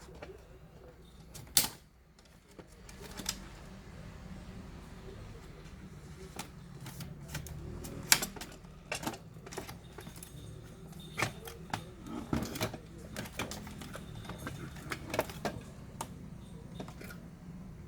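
Irregular clicks and taps of plastic and metal laptop parts being handled and pried during disassembly, with sharper, louder clicks about a second and a half in and again around eight seconds.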